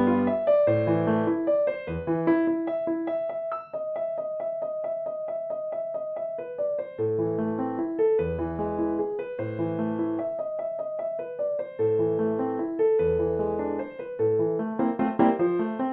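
Background piano music: a melody over repeated bass chords.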